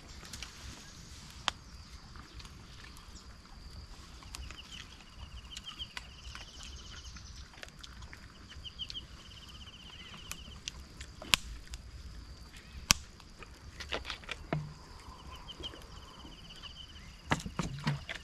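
Outdoor forest ambience: a short, rapid trill repeats every couple of seconds over a steady high-pitched hum, with a few sharp snaps or knocks scattered through, the loudest just past a third of the way in and a quick cluster near the end.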